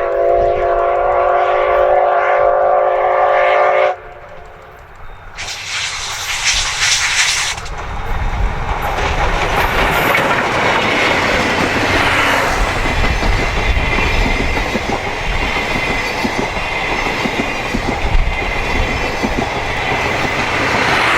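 C57 steam locomotive's whistle blowing one long multi-tone blast that cuts off about four seconds in. A loud hiss follows, and then the train runs past with its wheels clattering over the rails.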